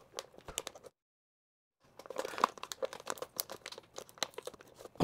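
Plastic packaging bag crinkling as it is handled and pulled off a network switch, with crackly rustles throughout. The sound cuts out completely for about a second, about a second in.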